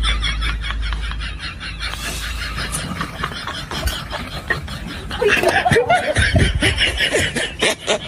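A person laughing in quick, repeated snickers, turning into louder, lower laughs about five seconds in.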